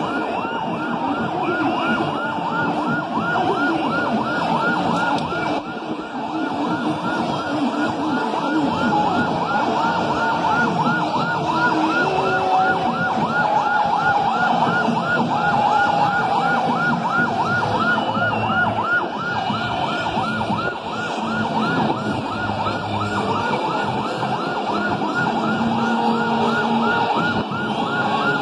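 Ambulance siren yelping in a fast, repeating rise and fall over the noise of a huge crowd.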